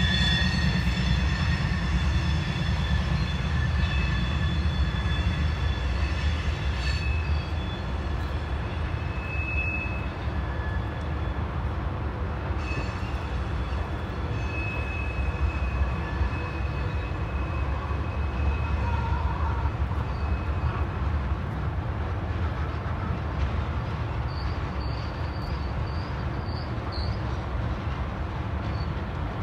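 Freight train of tank cars rolling slowly around a curve: a steady low rumble of wheels on rail with high steady wheel squeal from the curve. The squeal is loudest in the first several seconds and comes back briefly a few times later.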